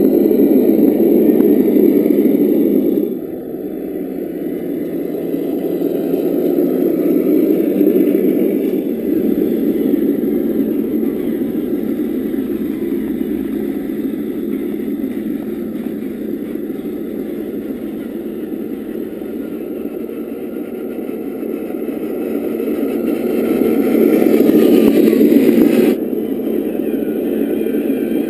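EssOne sound module playing a simulated truck diesel engine through the small speaker of a Tamiya CC-01 Unimog RC model as it drives. The engine sound runs steadily, swelling and fading, and drops abruptly about three seconds in and again near the end.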